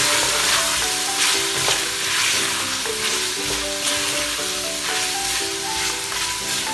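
Beef pieces and dry spices sizzling in hot oil in an aluminium pressure cooker while a wooden spoon stirs and scrapes them around the pan, the spices being fried in the oil. Soft background music with a simple stepping melody plays throughout.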